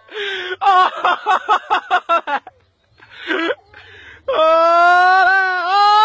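A person's voice in quick rhythmic bursts, then one long, wavering wail starting about four seconds in and lasting about two seconds.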